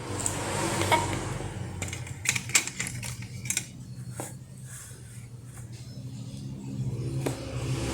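Scattered small clicks and taps of drawing and colouring tools handled on a table, over a steady low hum. Near the end a motor vehicle's engine grows louder as it approaches.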